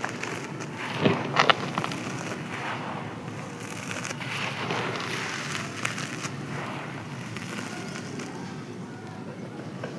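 Dry, crispy sand-cement being crumbled and crushed: a steady gritty crackle with a few sharp snaps about a second in.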